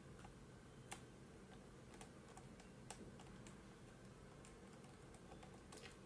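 Faint, irregular small clicks of a Phillips screwdriver working the bottom-cover screws of a laptop, over near silence.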